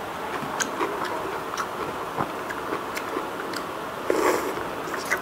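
Biting and chewing a whole shell-on shrimp: scattered crisp clicks, then a louder crunch about four seconds in.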